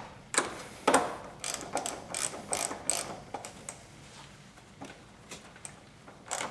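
Small ratchet wrench clicking as it tightens the clamp nut on a car battery's negative terminal, about two to three clicks a second, thinning out to a few fainter clicks after about three and a half seconds.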